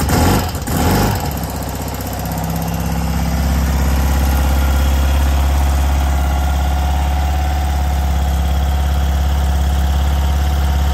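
1981 BMW R80 G/S's air-cooled boxer twin, just started cold with the choke on. It runs unevenly for the first second or so, then settles into a steady idle.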